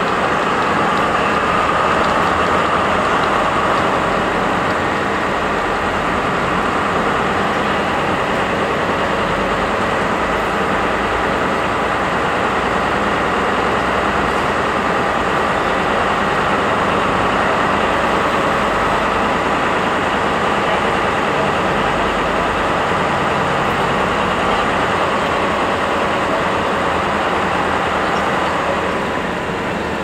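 MTU 4000 diesel engine of a DB class 218 locomotive idling at standstill, a loud steady run with a thin high whine over it. The level eases off slightly near the end.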